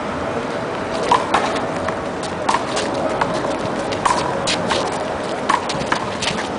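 Rubber handball smacking against the concrete wall, the players' hands and the asphalt court during a rally: an uneven string of about ten sharp slaps, some with a short ring. Steady outdoor background noise sits under them.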